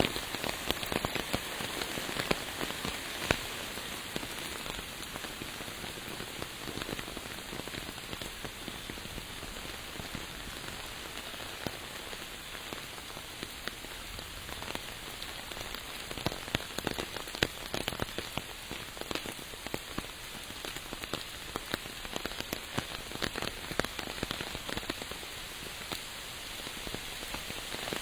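Steady rain falling, an even hiss dotted with many sharp ticks of individual drops striking close by.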